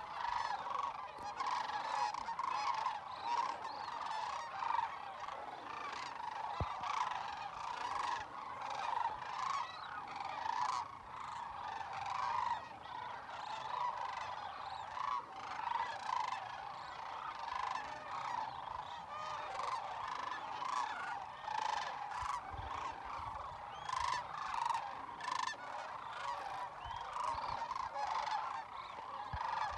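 A large flock of sandhill cranes calling continuously, many calls overlapping into a dense chorus as the birds fly in and gather on the marsh.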